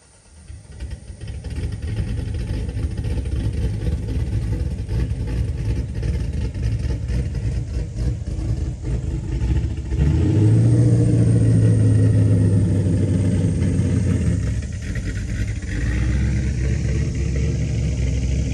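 A car engine running, rising to a louder, steadier note for a few seconds near the middle, then settling back.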